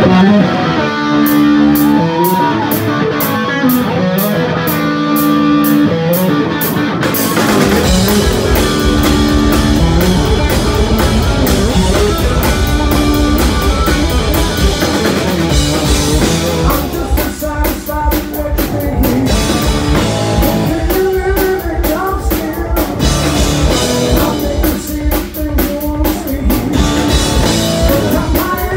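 Live rock band playing loudly. For the first seven seconds an electric guitar holds sustained notes over steady high ticks. Then the full band comes in with drums and bass, and a man sings near the end.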